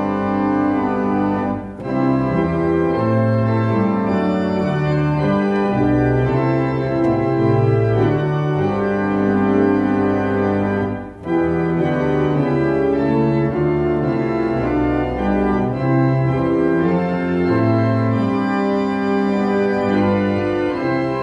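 Church organ playing a hymn in sustained chords that change about once a second, with two short breaks between phrases, one near two seconds in and one about eleven seconds in.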